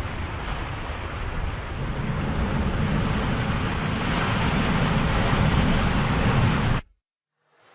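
Sea surf, waves washing in a steady rush that swells louder over several seconds. Near the end it cuts off suddenly to silence, and a quieter surf fades back in.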